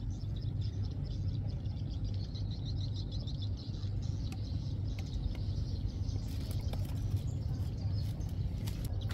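Small birds chirping in quick series over a steady low rumble.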